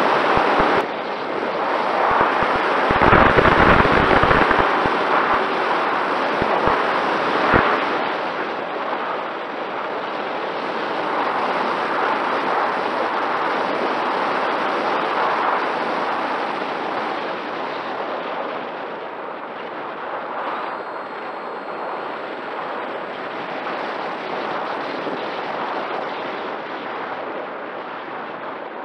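Rushing wind on the onboard camera microphone of a flying Mini Talon RC plane, with heavy buffeting pops and thumps in the first several seconds, then a steadier, lighter rush. Underneath it runs a faint steady whine from the plane's electric motor and propeller.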